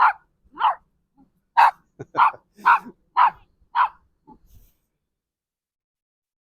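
Small Yorkshire Terrier barking: about eight short, high yaps in quick succession over roughly four seconds, then a few faint sounds and it stops.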